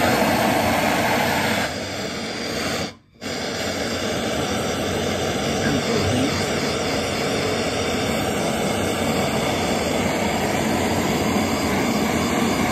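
Gas blowtorch flame hissing steadily while heating a seized, diesel-soaked threaded joint on a Snider Enfield rifle to break the seal. The sound drops out briefly about three seconds in, then carries on.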